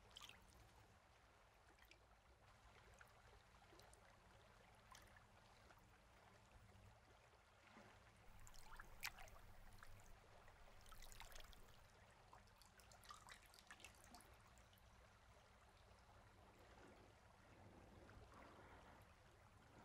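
Faint trickling and small splashes of a person moving in still lake water, a few slightly louder ones around the middle, against near silence.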